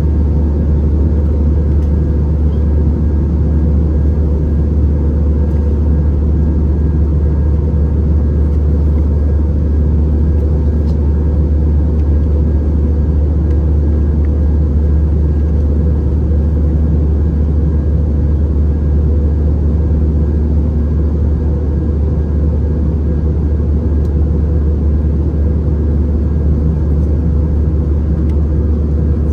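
Airbus A319 cabin noise heard from a window seat: a steady, loud, low drone of the CFM56 engines and airflow, with no change in pitch or level.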